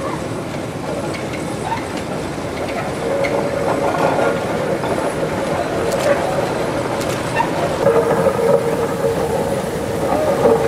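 Narrow-gauge sugar-mill steam locomotive running past, a steady mechanical rumble and rattle with a few sharp clanks. A steady higher tone comes in near the end.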